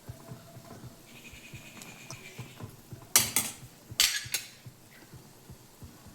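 A utensil clinking against a cooking pot in two short clusters of strikes, a little under a second apart, over the faint bubbling of soup on the boil.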